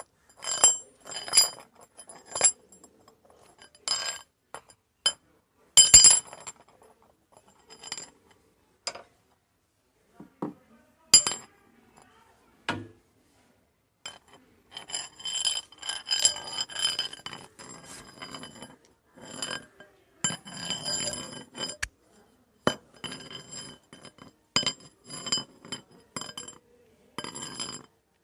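Metal rods clinking and striking against one another, each hit ringing with bright high tones. The strikes come irregularly, single or in short clusters, with a busier run of jangling rattles in the middle of the stretch.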